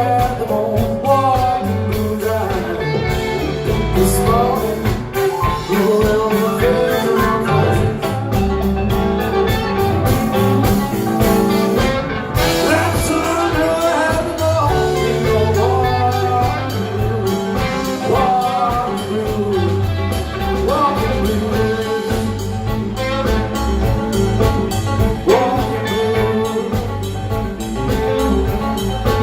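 Live band playing a blues-rock song, with a steady beat under guitar and vocal lines.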